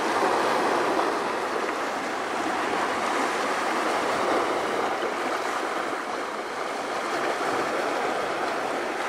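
Sea waves breaking on a rocky shore: a steady rush of surf.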